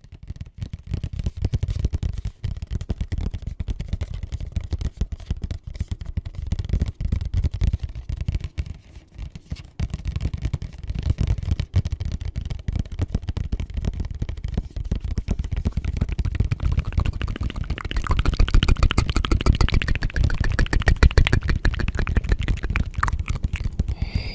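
Layered ASMR sounds: a dense, continuous crackling and scratching texture over a low rumble, turning brighter and crisper about three quarters of the way through.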